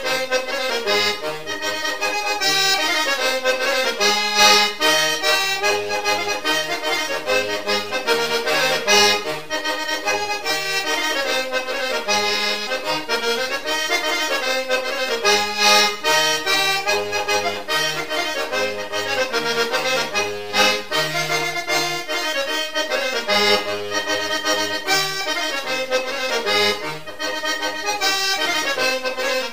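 Background instrumental music with a bass line that moves in a regular pattern.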